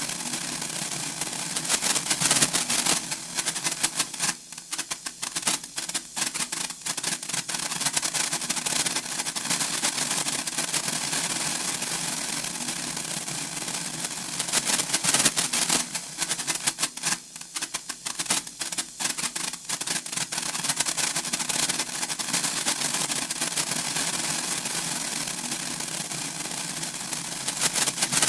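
Senko hanabi, a Japanese hand-held sparkler, crackling as it throws off sparks: a fast, dense stream of tiny pops and hiss. The crackle thins to scattered pops about four seconds in and again around seventeen seconds, then builds back to a dense crackle.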